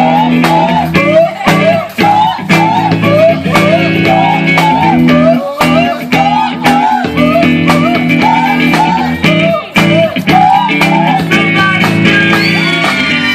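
Blues-style band music: an electric guitar repeats a short bending lick over sustained bass notes and a steady drum beat, with falling slides near the end.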